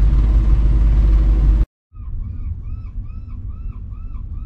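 Steady low rumble inside a motorhome's cab, which cuts off abruptly. After a brief gap a quieter rumble returns under seagulls calling in a regular series of arched cries, about two or three a second.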